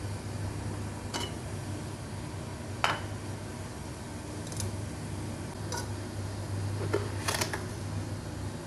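A metal pot and its lid being handled: a scattering of short metallic clinks and knocks, the sharpest about three seconds in and a quick cluster near the end, over a steady low hum.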